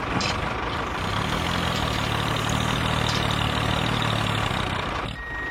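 Engine idling steadily, a low rumble with a dense noisy hiss over it. A high beep starts just before the end.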